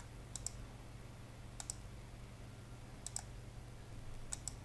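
Computer mouse clicking: four quick double ticks about a second and a half apart as points of lines are placed in a drawing program, over a faint steady low hum.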